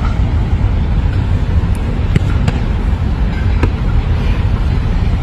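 Steady low outdoor rumble with a few sharp smacks of a football being struck: three in quick succession about two seconds in and one more just before four seconds.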